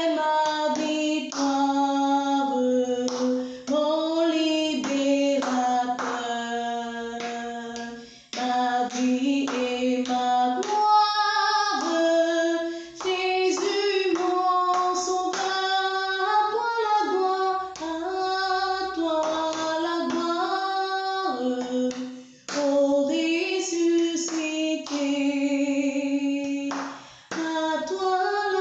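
A woman singing a French Easter resurrection hymn unaccompanied, in phrases with short breaks between them.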